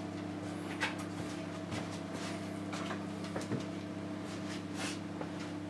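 Steady low hum of a running Miele electric oven, with a few faint ticks.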